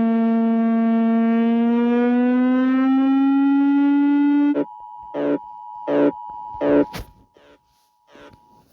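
Emergency alert siren: a loud, steady electronic tone that rises slightly in pitch about two to three seconds in, then cuts off abruptly. A quieter steady two-note alert tone follows, with short bursts sounding over it.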